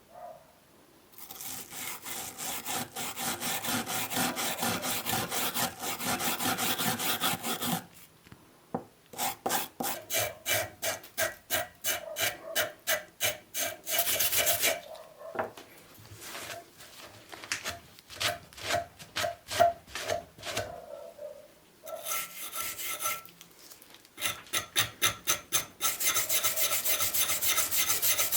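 Small moulding plane being scraped by hand during its restoration. First comes a long spell of continuous rubbing, then a run of short separate strokes about two a second, then continuous rubbing again.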